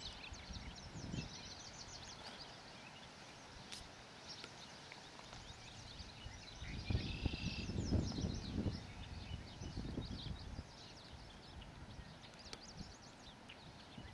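Quiet outdoor ambience with small birds chirping. Faint clicks come from hands working the plastic wheel and axle of a Traxxas 1/16 Summit RC truck, and a low rumble swells about seven seconds in and fades by nine.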